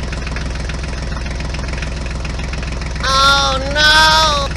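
A steady idling engine drone. Near the end a high-pitched voice calls out twice in short calls.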